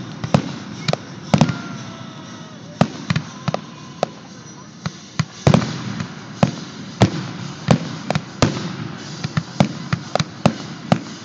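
Aerial fireworks shells bursting in a rapid, irregular string of sharp bangs. In the first few seconds a faint high tone glides slightly downward.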